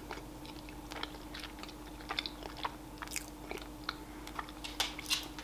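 Close-mic chewing of a chocolate bar: soft, irregular wet mouth clicks and smacks, a few a second, over a faint steady hum.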